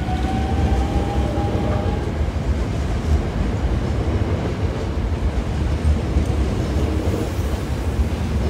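Hankyu 8000-series electric train moving along the platform. Its motor whine rises in pitch and fades out about two seconds in, over the steady rumble of the cars rolling past.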